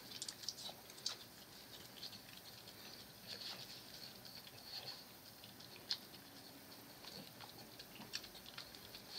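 French bulldog licking an ice cream cone held out to it: faint, irregular wet clicks and smacks of its tongue.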